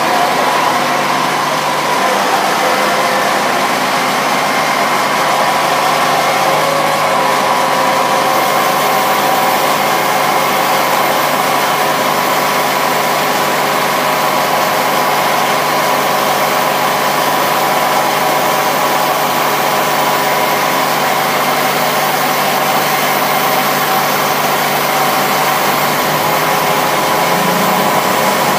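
An engine running steadily, a constant drone that holds the same speed throughout.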